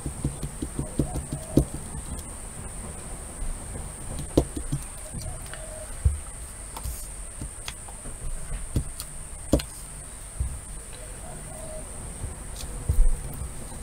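Scattered small clicks, taps and knocks of hands handling art supplies on a tabletop: a plastic palette, a paintbrush and a small paper card. A few dull thumps near the end come as a wooden-backed stamp is pressed onto the card. A faint steady high whine sits under it all.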